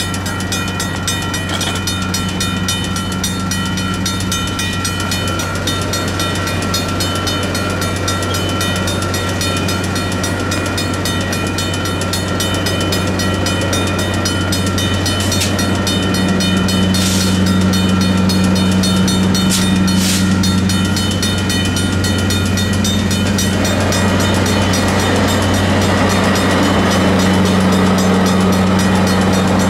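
Diesel locomotive's engine running with a steady low drone, its pitch band swelling as it works harder about halfway through and again near the end. A few short hisses come in the middle.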